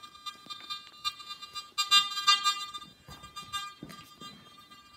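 Garrett AT Max metal detector giving a steady buzzing tone with many overtones, in all-metal mode with sensitivity at maximum; the tone swells louder for about a second midway.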